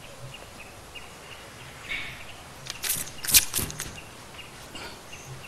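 Quiet open-air ambience with faint bird chirps, and a cluster of sharp knocks about three seconds in.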